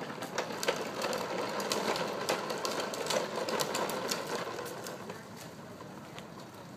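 Hard plastic wheels of a toddler's ride-on toy rattling and clicking as it rolls over rough pavement, getting fainter after about five seconds.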